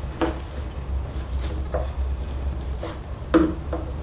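Rawhide lacing and a frame drum being handled while a tight knot is worked loose: scattered small knocks and rubs, with one louder knock a little past three seconds in, over a steady low hum.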